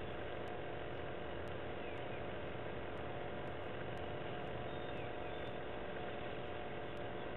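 Snowmaking machine fed with compressed air and water running steadily, a constant hiss with an even hum.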